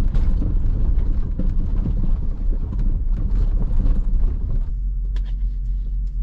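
Off-road vehicle driving on a rough dirt trail: a steady low rumble with small knocks and rattles over it. The rumble changes suddenly about three-quarters of the way through.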